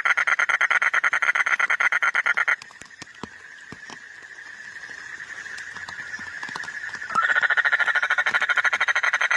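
Frog calling in a loud, rapid pulsed trill of about ten pulses a second. The trill breaks off about two and a half seconds in, leaving a fainter steady high tone with scattered clicks, then starts again about seven seconds in.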